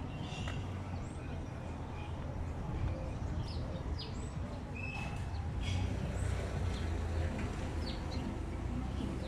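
Birds chirping in many short calls from the street trees over a steady low rumble of city street noise.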